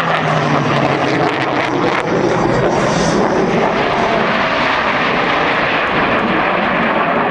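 Blue Angels F/A-18 Hornet jets flying over, a loud, steady rush of jet engine noise.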